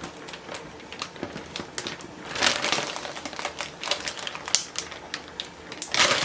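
Plastic freezer bag crinkling and rustling as it is handled, with scattered light clicks and taps, a denser burst of rustling about two and a half seconds in and again near the end.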